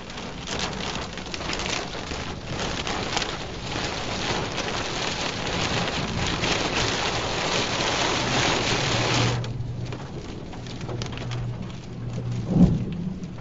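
Heavy rain pelting the car's windshield and body, heard from inside the car; the downpour eases suddenly about nine seconds in, leaving lighter rain over a steady low hum. Near the end comes one short, loud boom.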